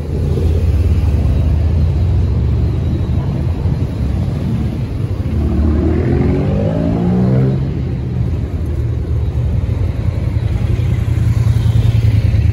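Car engine running with a steady low rumble, revving up once about halfway through.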